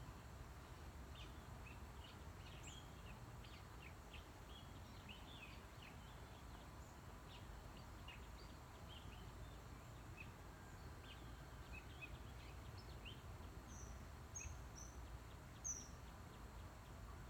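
Faint chirping of small birds: many short, scattered high calls, with a few louder sharp notes near the end, over a steady low background rumble.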